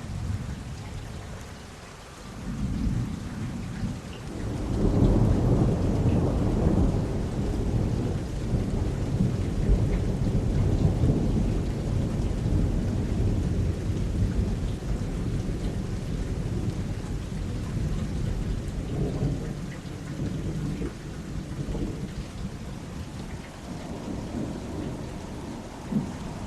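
Thunder rolling over a steady hiss of rain. A low rumble builds a couple of seconds in, swells into a long loud roll about five seconds in that slowly fades, and a sharper crack comes near the end.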